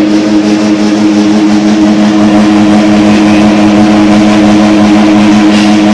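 LMS-1000-PM pelletizer with its 5 hp motor running steadily under load while pressing compost into pellets: a loud, even hum with a hiss of material over it.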